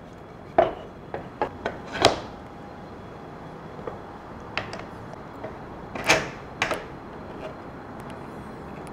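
Wooden jig and workpiece knocking against each other and the table as they are set in place on locating pins: a string of sharp wooden knocks and clacks, loudest about two seconds and six seconds in.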